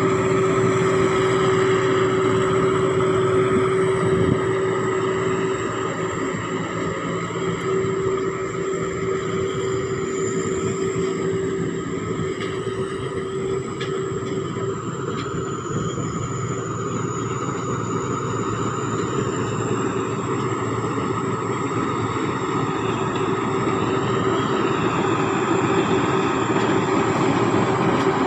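Sakphattana SS-300 combine harvester's diesel engine running steadily under load while harvesting, with a thin, high turbocharger whistle over the engine note. It gets somewhat quieter about five seconds in and louder again near the end.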